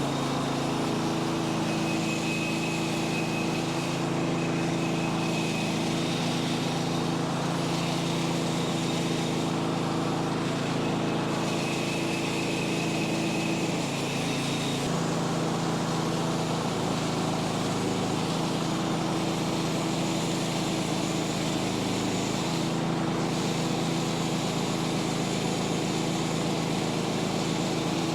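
Engine running steadily at a constant speed, with a faint high whine that comes and goes.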